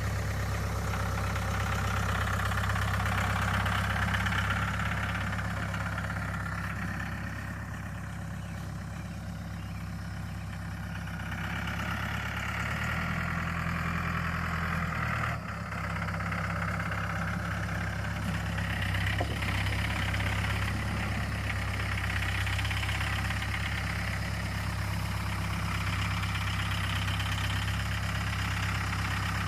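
An engine idling steadily, its note changing briefly about halfway through before settling back.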